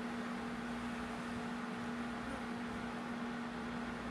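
Steady machine hum with a constant low tone over an even hiss, unchanging throughout.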